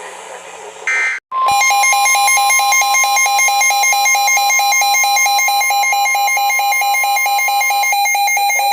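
NOAA Weather Radio's steady 1050 Hz warning alert tone, starting about a second and a half in and stopping about a second before the end, sounding together with a rapidly pulsing electronic alarm beep. A short burst of digital data noise comes just before the tones start.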